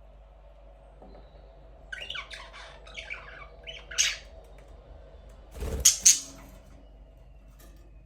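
Budgerigars calling: a quick run of short harsh chirps, then about two seconds later a louder burst of two sharp squawks.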